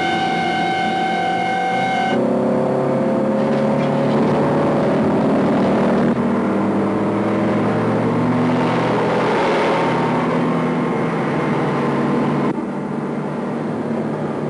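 A held horn for about the first two seconds, then the engines of a Renault 5 and a Ford Transit van revving hard, their pitch climbing and dropping back several times.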